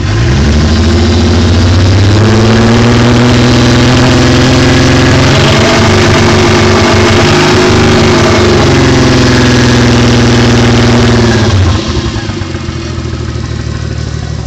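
Mk3 Toyota Supra's turbocharged 7M-GTE inline-six engine held at raised revs for about twelve seconds, then dropping back to idle near the end. The engine has rod knock.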